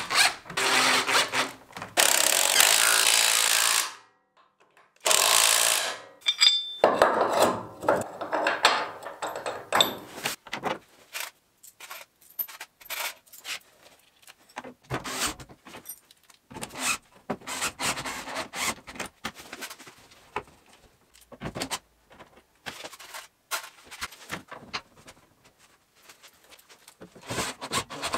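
Cordless drill running at speed into the polyethylene tub of an Argo amphibious vehicle, in two runs of about two seconds and one second. Then scattered clicks and knocks of hardware being handled.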